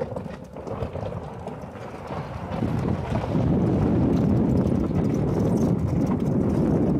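Golf cart riding along a road: a low, steady rumble of the ride with no distinct motor tone, growing louder about three seconds in and holding steady from there.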